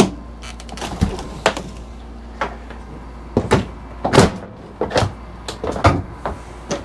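Irregular knocks and clunks, about a dozen, from parts and packing being handled while a shipping crate is unpacked. The loudest comes about four seconds in.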